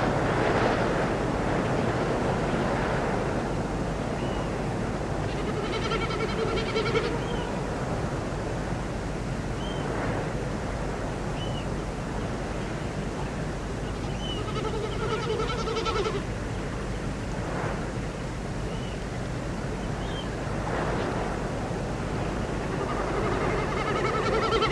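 Outdoor spring morning ambience: a steady rushing noise with a large bird calling three times, each drawn-out call lasting about two seconds, and small birds giving short high chirps in between.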